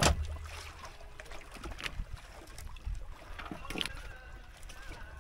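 Small wooden fishing boat at rest on the water: water lapping at the hull and a low rumble, broken by a few knocks and clicks. The loudest is a sharp knock right at the start.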